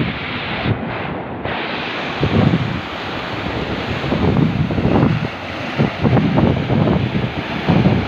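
Small waves breaking and washing up a sandy beach, with gusty wind buffeting the microphone in uneven low rumbling surges.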